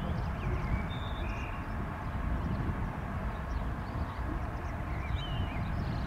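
Low, uneven rumble of wind on the microphone, with small birds chirping now and then.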